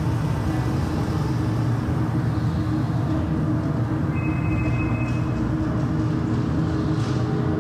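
Video installation soundtrack playing through the gallery's speakers: a steady low rumble, with a brief high tone about four seconds in.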